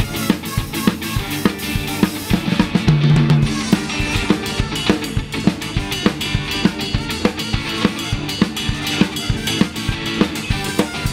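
Live ska band playing at a fast, steady beat: drum kit with snare and bass drum, electric bass, guitars, organ, trumpet and tenor saxophone.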